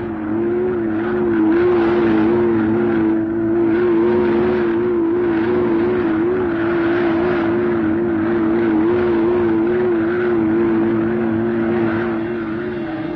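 Flying robot's engine sound effect on a 1941 animated cartoon soundtrack: a steady whirring drone under a warbling whine that wavers evenly up and down. A lower steady hum in it drops out near the end.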